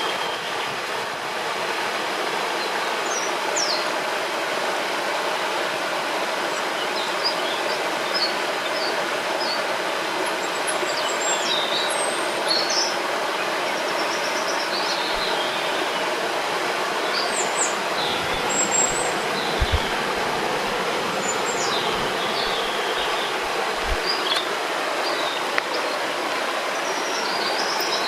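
Steady rushing of a flowing river, with small birds chirping and giving short trills now and then above the water. A few brief low thumps come in the second half.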